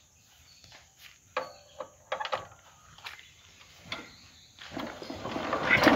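A few sharp clicks and knocks, then about four and a half seconds in the Kubota K75's single-cylinder diesel is hand-cranked to start, a mechanical whirring that builds quickly and grows louder.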